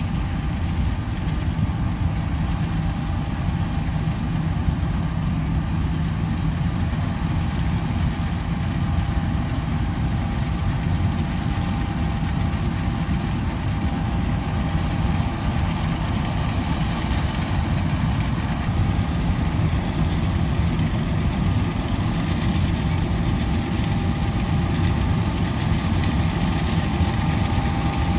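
Heavy farm machinery running steadily: a deep, even engine rumble with a faint steady whine above it.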